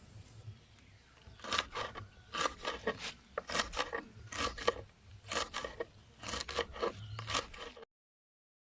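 Blade cutting through kangkong (water spinach) stems, slicing them thin: a run of short crisp cuts, about two a second, that cuts off abruptly near the end.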